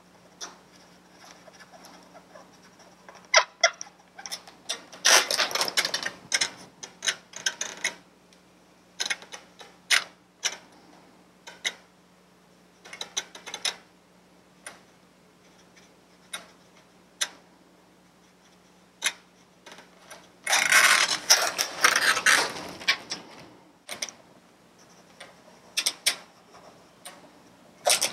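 Black felt-tip permanent marker drawing on an inflated latex balloon: short scratchy strokes throughout, with two longer stretches of dense rubbing, about five seconds in and again about twenty seconds in. A faint steady low hum lies underneath.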